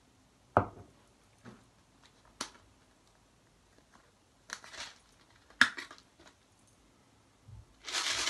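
Plastic spice containers being handled: a sharp knock about half a second in, a few lighter clicks, short scraping bursts as a jar lid is worked a few seconds later, then near the end a steady rattling shake of the jar's dry contents.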